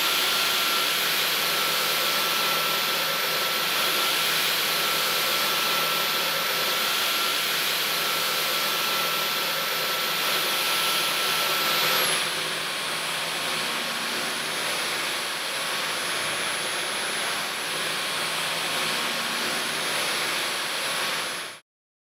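Dyson V15 Detect cordless stick vacuum running: a steady rush of air with a high motor whine over it. About twelve seconds in the whine steps down slightly in pitch and the sound gets a little quieter; it cuts off suddenly near the end.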